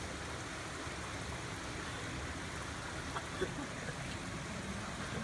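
Steady rushing of flowing water from the pool, with two faint taps a little past the middle.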